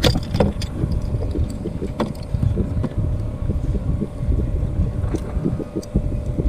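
Wind buffeting a GoPro microphone, a fluttering low rumble, with a few light clicks and knocks near the start and about two seconds in as a small fish is handled and unhooked with pliers.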